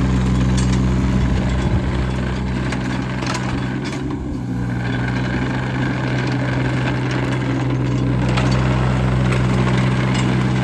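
Yanmar diesel engine of a 2008 John Deere 17D mini excavator running steadily, its note shifting slightly about four seconds in, with a few light knocks from the machine.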